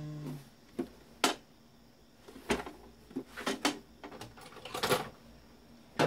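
Hard plastic parts of a Samsung VCA-SAE90A vacuum cleaner's housing clicking and knocking as they are handled and a hinged plastic cover is swung open. The sharp clicks come one at a time: a loud one about a second in, several more, then a quick cluster near the end.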